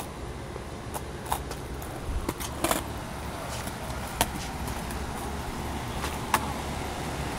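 Skateboard wheels rolling on a concrete sidewalk with a steady low rumble. A few short, sharp clacks come every second or so along the way.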